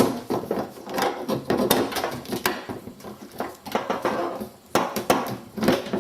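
Irregular plastic clicks, knocks and rustling from a wiring harness being pushed by hand back up through a car door's inner panel.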